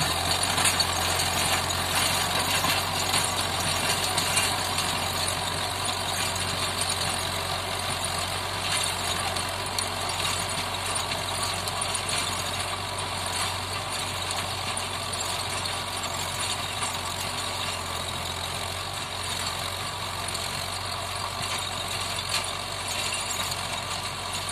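Mahindra Yuvo diesel tractor engine running steadily under load, driving a 7-foot rotavator whose blades churn through hard, cloddy soil. The sound fades slowly as the tractor works away.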